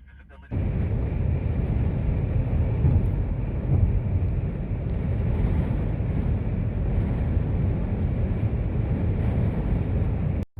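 Strong wind blowing across the microphone in a snow squall, a heavy low rumble that rises and falls a little. It starts suddenly and cuts off suddenly.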